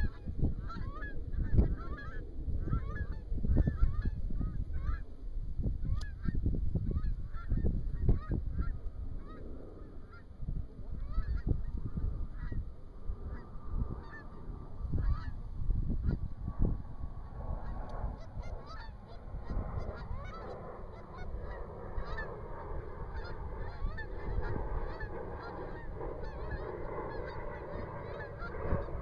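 Geese honking over and over, at first one or two calls a second, then swelling from about two-thirds of the way in into the dense, overlapping calling of a flock. Low, uneven wind rumble on the microphone runs underneath.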